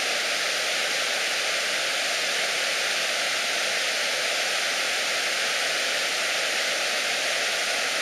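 A river in spate rushing: turbulent floodwater making a steady, even rush of noise.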